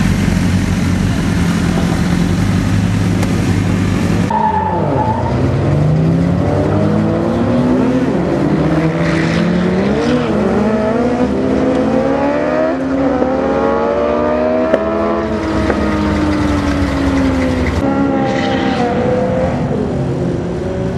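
Drag-racing motorcycle engines. At first a bike runs close by with a steady note. After a cut about four seconds in, bikes accelerate hard down the strip, their engine pitch climbing and dropping back with each gear shift, several engines overlapping.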